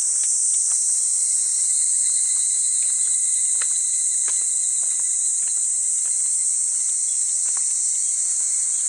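Steady, loud, high-pitched insect chorus in woodland, with faint footsteps on stone steps.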